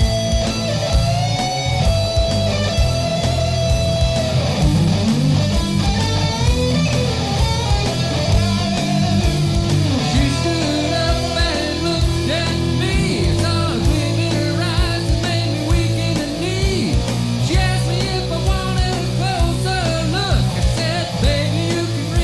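Rock music with electric guitar, a steady beat and a sung or lead melody line.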